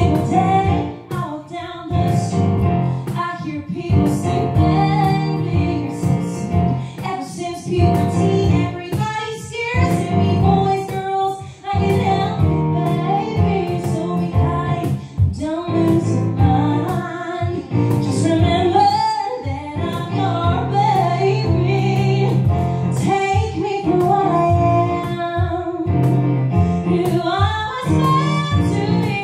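Two women singing a show-tune duet live into handheld microphones, taking lines in turn, over instrumental accompaniment.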